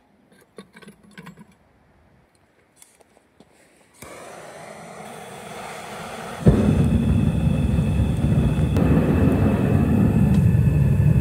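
Gas-fired metal-melting furnace being lit: after a few faint clicks, a steady hiss of gas starts about four seconds in, and a couple of seconds later the burner catches with a sudden jump into a loud, steady burn.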